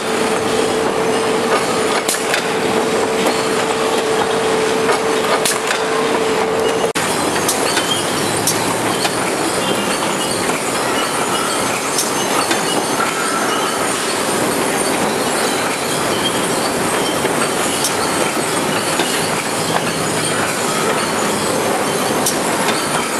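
Veneer composer (core veneer jointer) running in a plywood mill: a steady, loud mechanical clatter and hiss from its feed chains and rollers, with occasional sharp clicks. A steady hum stops abruptly about seven seconds in.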